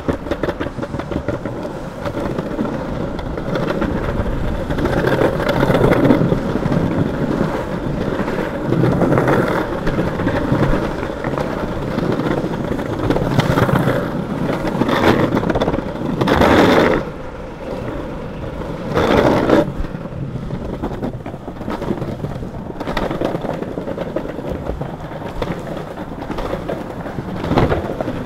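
Longboard wheels rolling over pavement slabs: a continuous rolling rumble broken by frequent clacks as the wheels cross the joints. Two louder swells come about two-thirds of the way in.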